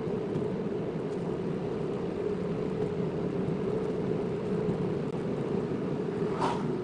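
Steady road and engine noise of a car driving, with a brief sharp sound near the end.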